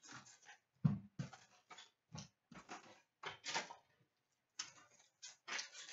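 Hands handling wrapped hockey card packs and their cardboard box on a glass counter: irregular crinkles, rustles and light knocks, with a louder thump about a second in.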